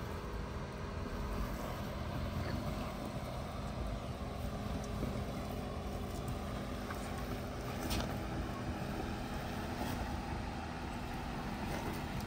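Engine of a 4x4 off-road vehicle running steadily at low speed on a rough track, with a short knock about eight seconds in.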